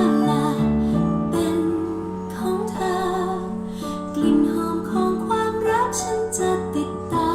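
A pop ballad playing through a car's aftermarket speaker system, in a guitar-led instrumental passage with plucked and strummed guitar over sustained notes.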